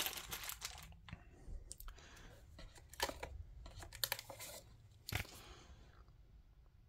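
Hands handling plastic packaging: faint crinkling at first, then a few separate sharp clicks and taps, the clearest about three, four and five seconds in.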